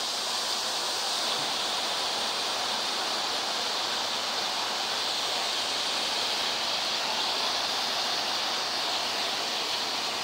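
A waterfall cascading down a rock face: a steady rushing of falling water that holds even throughout.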